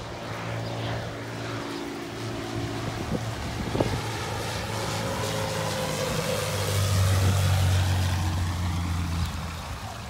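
Cessna 206 seaplane's piston engine and propeller droning steadily, swelling louder about seven seconds in and then easing off. A brief sharp knock about four seconds in.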